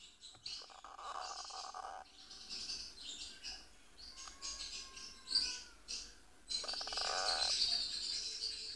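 Young lacewing Indian ringneck parakeet chick calling while being handled: a run of short high chirps, broken twice by longer raspy, buzzing calls, one near the start and one about seven seconds in.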